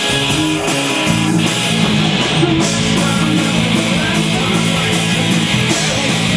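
Live dance punk band playing loud, with electric guitar chords over drums and cymbals, recorded from the room on a camcorder.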